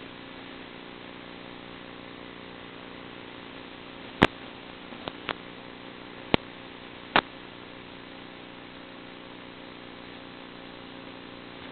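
Steady hiss with a faint, unchanging electrical hum, typical of the audio on an analog FPV video-link recording. A few sharp clicks come between about four and seven seconds in, three of them loud.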